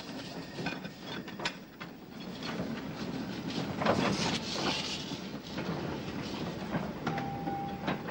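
Steam locomotive moving slowly while shunting, with irregular clanks and knocks from wheels and running gear over rail joints, a little louder around the middle.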